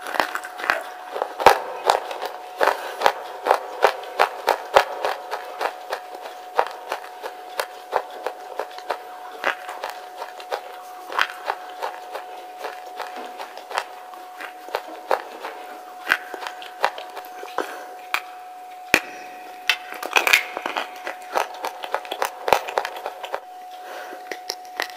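Pieces of wet slate being bitten and chewed: many sharp, crisp crunches as the slate cracks between the teeth, coming quickly in the first few seconds and more sparsely after, with a steady faint tone underneath.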